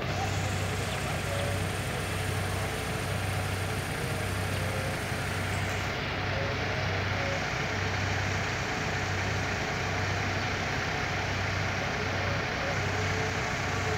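Diesel engine of a mobile crane running steadily, a continuous low hum that pulses about once a second.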